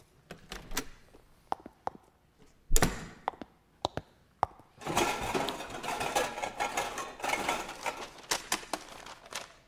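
Live radio sound effects of someone going into a cramped room: scattered knocks, a door shut with a heavy thump a little under three seconds in, then a long stretch of clattering and rummaging as objects are bumped and shifted about.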